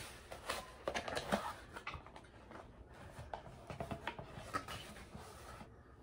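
A small cardboard box being handled and opened by hand: light scrapes, taps and rustles of the cardboard flaps and lid, dying away near the end.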